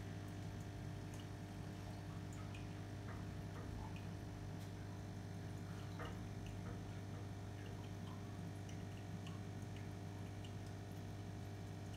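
Steady low hum of an aquarium's filter pump, with faint scattered ticks and drips of water.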